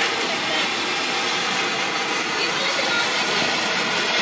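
Handheld firework fountain spraying a column of sparks with a steady hiss.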